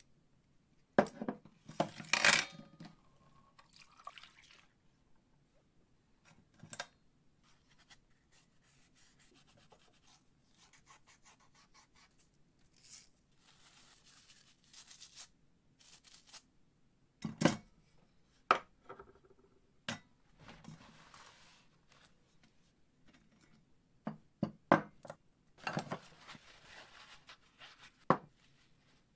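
Small steel drill-chuck parts being cleaned by hand: sharp clinks and knocks of the parts being handled, a stiff-bristle brush scrubbing a part over a steel bowl through the middle, and a paper towel rubbing as a part is wiped dry near the end.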